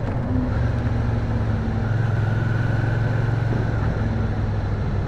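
Motorcycle engine running at a steady, even pitch while riding at constant speed.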